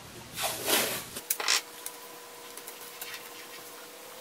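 Hands handling a fermentation heater strip and tape on a glass carboy: two short rustling scrapes, then a few light clicks and taps.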